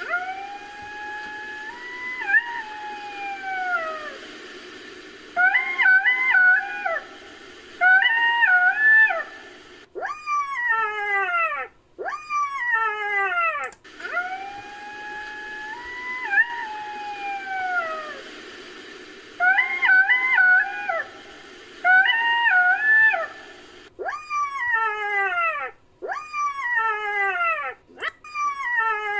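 Black-backed jackal calls, edited as a sound effect from jackal recordings. One long howl rises and then falls, followed by two pairs of short wavering calls and a run of quick falling yelps, and the whole sequence plays twice. A faint steady drone lies beneath.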